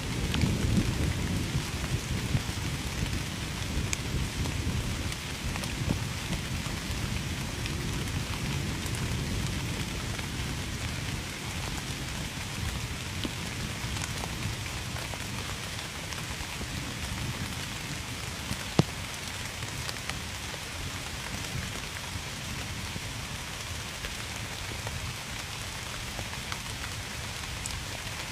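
Steady rain falling on a surface, with individual drops ticking. A low rumble underneath fades over the first ten seconds or so, and one sharp drop tick stands out about two-thirds of the way through.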